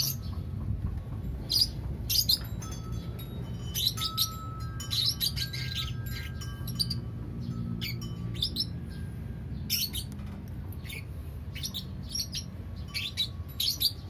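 Lovebirds chirping: short, sharp, high chirps repeated irregularly, about one or two a second, over a steady low hum.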